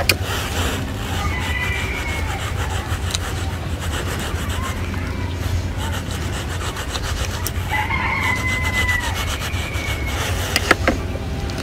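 Rasping, rubbing sounds of a small knife cutting through a mandarin's peel, pith and segments, over a steady low hum. A rooster crows in the background twice, once early and again about eight seconds in.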